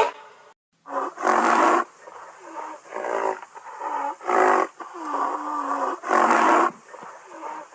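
A rhinoceros calling: a rapid series of about eight harsh, pitched calls, one a little past the middle drawn out on a low tone, over a steady faint hiss.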